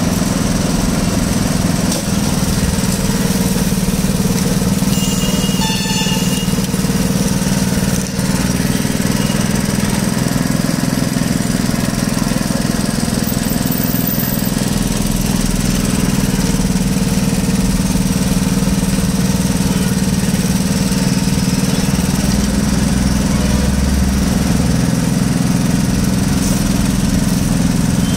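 The drive of a wooden-roller sugarcane juice crusher running with a steady, unbroken low drone.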